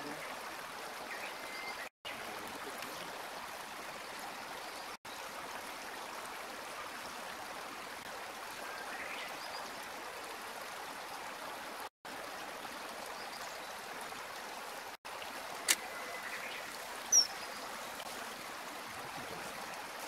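Steady rush of running stream water, breaking off for an instant four times. Near the end come two brief, sharp high-pitched sounds.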